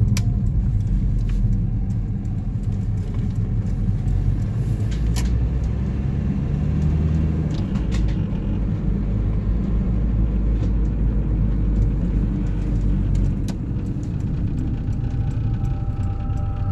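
Steady low engine and road rumble heard inside the cabin of a moving car, with a few light clicks. Faint music fades in near the end.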